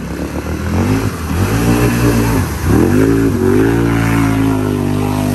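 Can-Am Outlander 800 ATV's V-twin engine revving hard as it drives through a mud hole. Its pitch climbs, dips twice and then holds high.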